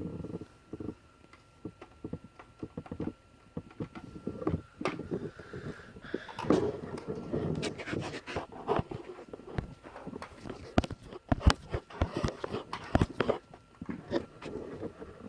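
Small plastic toy figures and a plastic toy vehicle being handled, with many irregular clicks, taps and knocks that grow busier a few seconds in and ease off near the end.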